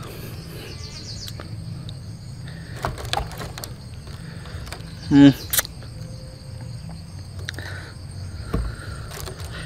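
Insects chirring steadily in the background, with a few short knocks as the fruit and a glass bowl are handled on a bamboo tray. A brief vocal sound comes about five seconds in.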